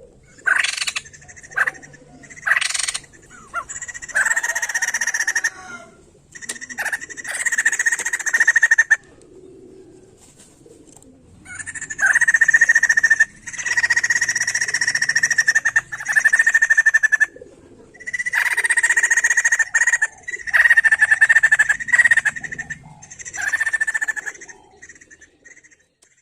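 White-crested laughingthrush (poksay jambul) song: loud, rapid chattering phrases, each a second or two long, separated by short pauses, after a few short calls at the start.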